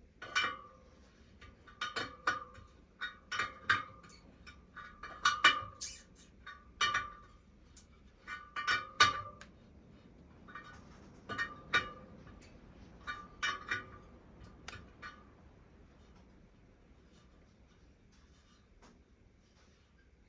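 Metallic clinks and pings with a short ring, about a dozen spread irregularly over the first fifteen seconds and then stopping, from tools on the spokes of a straight-pull spoked wheel during spoke replacement and truing.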